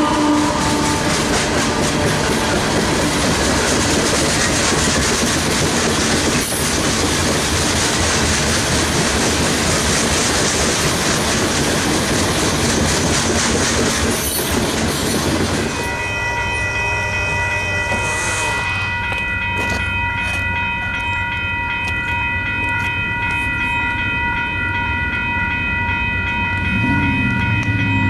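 A Union Pacific GE Dash 9 diesel locomotive and its empty rock cars passing close by, with loud rolling and rumbling wheel noise, just after a horn blast. About halfway through the rolling noise drops away and a steady chord of high tones sounds to the end.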